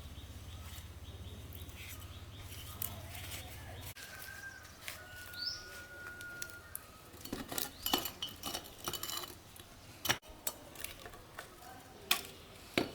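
A low steady hum that cuts off suddenly about four seconds in, followed by scattered clinks and knocks of metal objects being handled.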